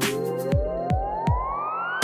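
Background electronic dance music: a synth sweep rising steadily in pitch over a kick-drum beat, with the high cymbal sounds dropping out about a quarter of the way in.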